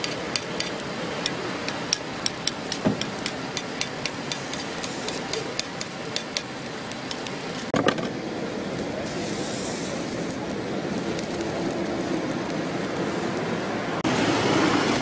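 Gukhwappang batter cooking on a hot griddle plate, with frequent sharp clicks through the first half and one louder knock about eight seconds in. A steady street-noise bed runs underneath.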